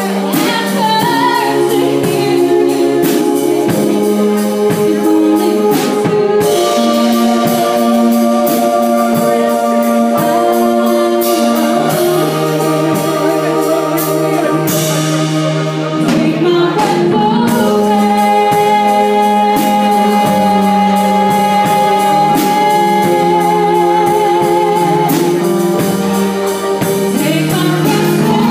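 Live band playing a song: electric bass, drum kit and keyboard, with a voice singing held, wavering notes over them.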